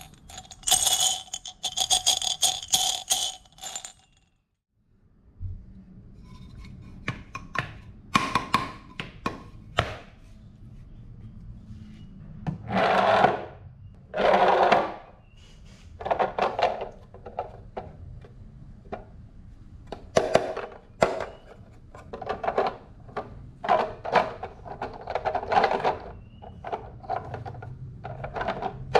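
Marbles rolling and clacking along a wooden HABA marble run: many quick clicks and knocks, with two longer rattling runs around the middle. It opens with a few seconds of jingling metallic ringing, then breaks off briefly before the clacking starts.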